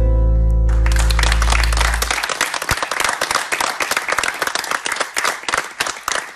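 The closing chord of the fado guitars, a Portuguese guitar and a classical guitar, rings out and fades over the first two seconds. Audience applause starts under it less than a second in and continues as steady clapping.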